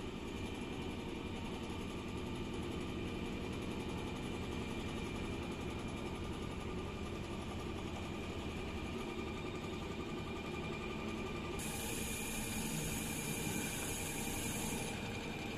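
Richpeace heating-wire sewing machine running with a steady mechanical hum and a faint high whine. A hiss comes in about twelve seconds in and stops about three seconds later.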